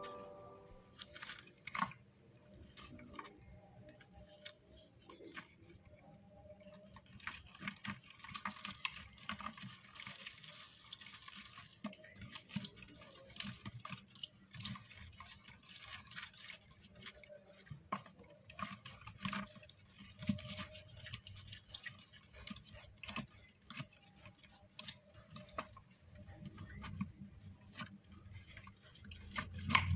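Syrian hamsters moving about in wood shavings in a plastic bowl: faint, irregular rustling, scratching and clicking, with a low bump at the very end.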